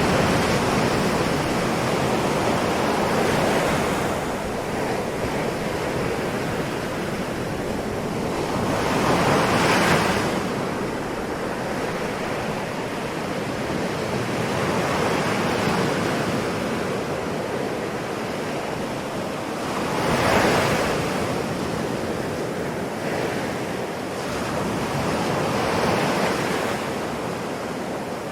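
Ocean waves breaking and washing on a shore, a steady surf hiss that swells as each wave breaks, with the strongest breaks about ten and twenty seconds in.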